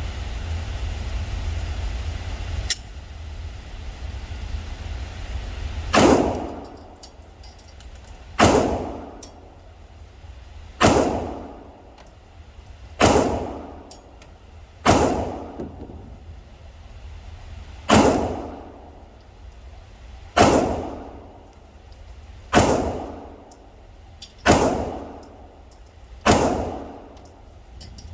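Ten shots from a Glock 43X 9mm pistol, fired one at a time about two seconds apart, each followed by a ringing echo that dies away over about a second.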